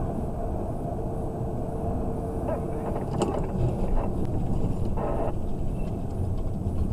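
Steady road and engine rumble heard inside a vehicle's cabin as it drives along a highway, with a faint tick about three seconds in.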